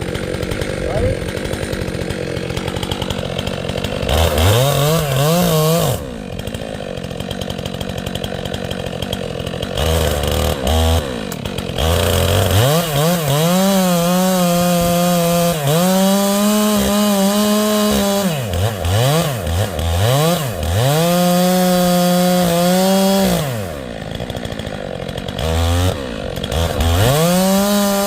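Gas chainsaw cutting into a tree trunk while felling it. It revs up to full throttle, holds there for a few seconds, then drops back, over and over, with rougher low-speed stretches in between.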